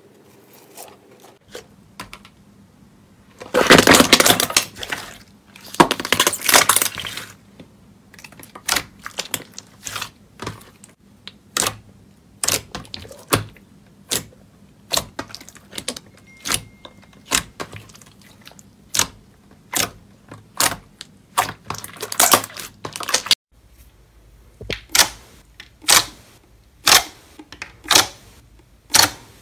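Thick slime being squished, with two loud wet squelching stretches early on, then fingertips pressing into it over and over, each press giving a sharp pop of trapped air, a little more than one a second.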